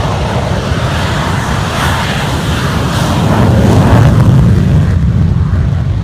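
F-16 fighter jet engine roaring as the jet passes the crowd, swelling to its loudest a little past the middle and then easing off.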